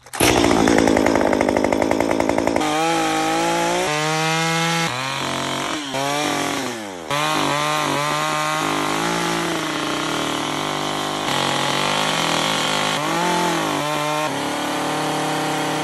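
Stihl two-stroke chainsaw running and cutting into a wooden log, the engine pitch falling and rising again and again as the chain bites into the wood and frees up. The pitch sags deeply about seven seconds in. The saw is loudest in the first two or three seconds.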